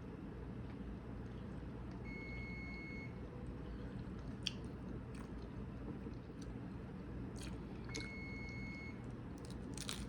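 Chewing and biting into food, with scattered short crunchy clicks over a steady low hum. Two long electronic beeps, each about a second, sound about six seconds apart.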